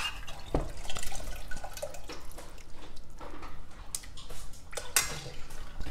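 Whey dripping from freshly strained cheese curds in a cloth-lined colander into the bowl below, with scattered light irregular ticks and one sharper tap near the end.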